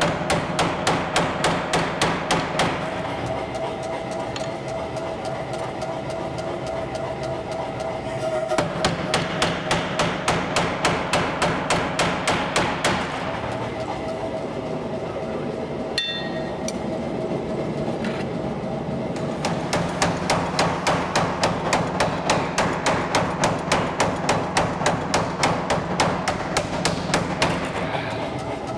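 Power hammer striking hot H-13 steel bar in three runs of rapid blows, about four to five a second, with the machine's hum carrying on between the runs. A single ringing metal clang comes about halfway through.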